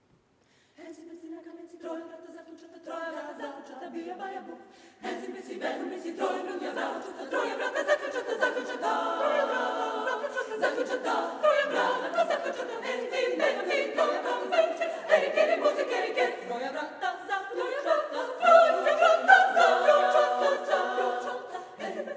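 Women's chamber choir singing a cappella. Soft voices enter one after another in the first few seconds, then the full choir grows louder from about five seconds in and is loudest near the end.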